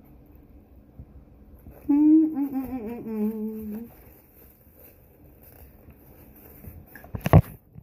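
A woman humming a drawn-out 'mmm' with her mouth closed over a mouthful of sandwich, about two seconds long, the pitch wavering and sliding down. A sharp knock near the end.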